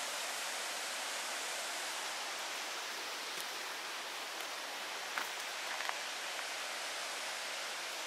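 Steady rushing of a mountain stream and waterfall. A few soft clicks of footsteps on the dirt path come about five to six seconds in.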